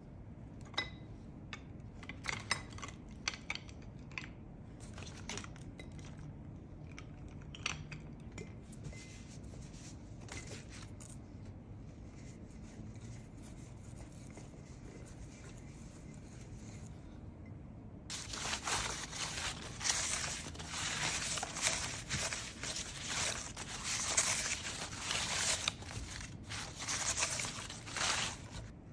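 Light handling taps and clicks, then from about two-thirds of the way in a steady rustling and scraping of fabric against a wicker basket as cloth is pushed into it.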